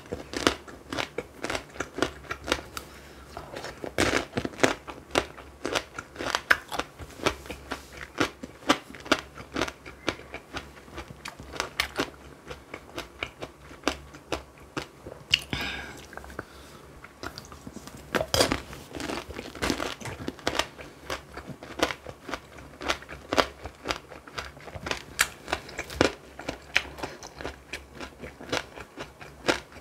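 A person biting and chewing tanghulu: the hard candied-sugar shell on the fruit cracks in many sharp, irregular crunches, one after another, with chewing in between.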